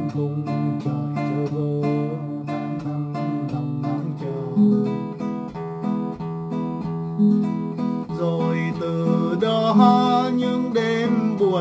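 Wayne W-20 nylon-string classical guitar played unamplified, fingerpicked, with sustained bass notes under plucked chords and melody notes.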